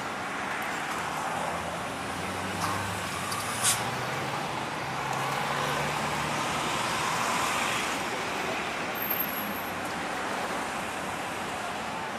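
Steady road traffic noise, with a low engine hum and a swell of passing-vehicle noise. A single sharp click comes about three and a half seconds in.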